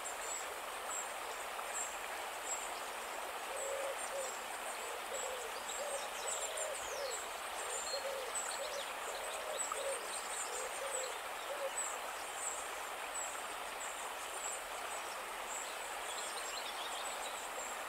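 A series of about a dozen short, low calls, each rising and falling in pitch, from about four seconds in to about twelve seconds in. They sit over a steady hiss, with faint high chirps scattered throughout.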